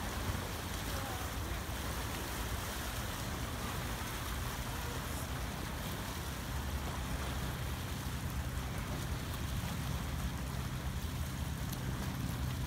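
Steady wind noise on the microphone over small waves lapping against a rocky shoreline.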